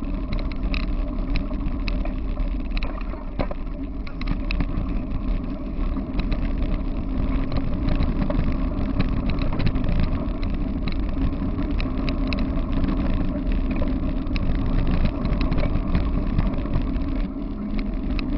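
Steady rumble of a dog-pulled rig's wheels rolling fast over a gravel-and-dirt trail, mixed with wind on the rig-mounted microphone, with frequent small clicks and rattles from the gravel and rig.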